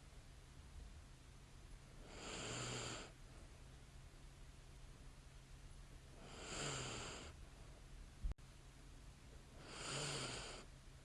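A sleeping woman's light snoring breaths: three slow, airy breaths about every four seconds, each lasting about a second with a faint low snore at its start. A single sharp click sounds about eight seconds in.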